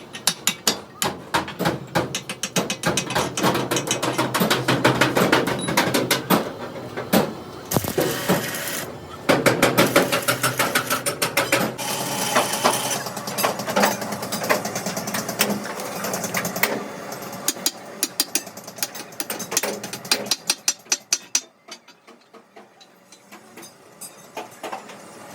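Rapid, repeated metal-on-metal strikes from work on a steel truck axle housing, with a short stretch of steady noise about eight seconds in; the strikes grow sparse and quieter near the end.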